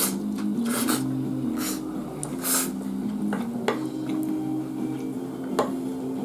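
Chewing and mouth noises from a mouthful of omelet rice, then a spoon scraping and clicking against a plate a few times in the second half, over soft background music.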